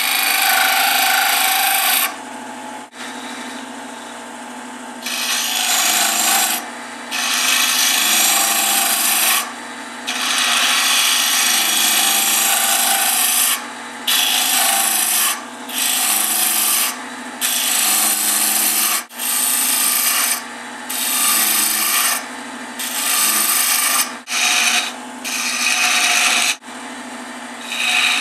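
Sandpaper held against a small wooden knob spinning on a wood lathe: a rushing scrape that comes and goes in irregular strokes of a second or a few seconds, over the lathe's steady motor hum.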